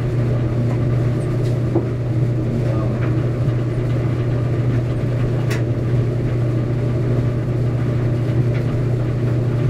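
Steady, unbroken low hum like a motor or fan running, with a few faint ticks over it.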